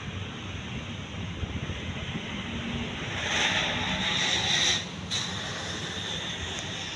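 Decorative ceiling fan running with a steady hum and rush of moving air. About three seconds in, a louder hiss swells for about a second and a half, then stops with a short click.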